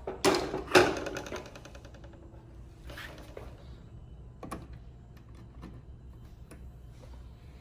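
Two sharp knocks, then a rapid, evenly spaced clicking rattle for about a second, followed by a faint low hum and one more sharp click about four and a half seconds in.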